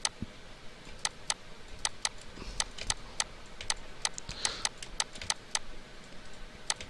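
Computer mouse clicking repeatedly: sharp, irregular clicks about two or three a second as a brush is dabbed in an image editor, over a faint steady hiss.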